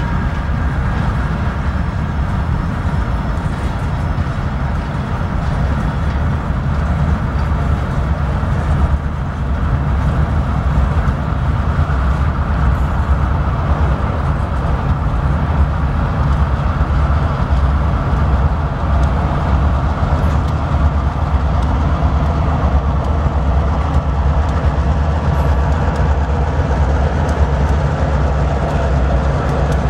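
A string of open-top hopper cars rolling slowly past, a steady low rumble of steel wheels on rail with faint steady squealing tones above it.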